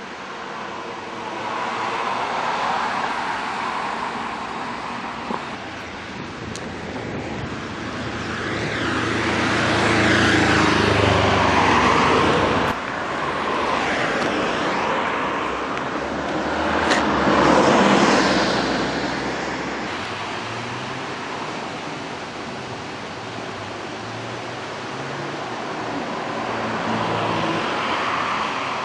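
Road traffic: several cars pass close by one after another, each swelling up and fading away, over a steady background hiss. The sound cuts off abruptly about thirteen seconds in and resumes straight away.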